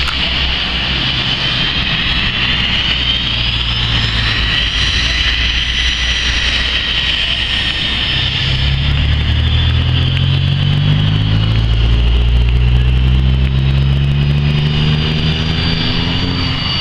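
Cessna Citation CJ2+ twin Williams FJ44 turbofans running at taxi power, a steady high jet whine that shifts in pitch as the jet turns. From about halfway through, a deeper engine drone builds and rises in pitch beneath it.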